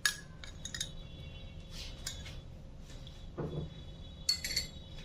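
A teaspoon clinking against a dish a few times while mustard paste is spooned in, each clink with a short bright ring; the last pair comes near the end.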